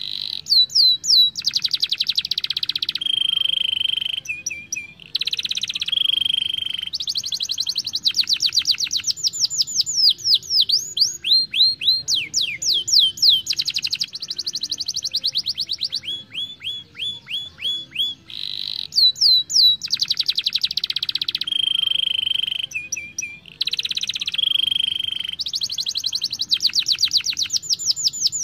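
Young domestic canary singing a continuous song of fast rolling trills and rapid repeated-note phrases, switching between them every second or two. The same run of phrases comes round again about eighteen seconds later.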